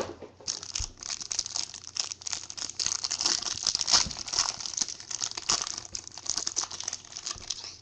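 Thin plastic wrapping on trading cards crinkling and crackling continuously with many small clicks as cards are unwrapped and handled.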